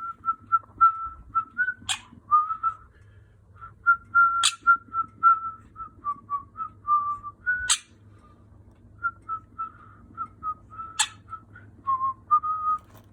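Cockatiel whistling a tune: a long run of short whistled notes close together in pitch, with brief pauses. Four sharp clicks are spaced through it.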